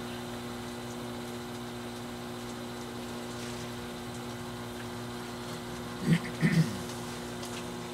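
Skutt Prodigy electric potter's wheel running with a steady hum while porcelain is shaped on it. A short voice sound twice, about six seconds in.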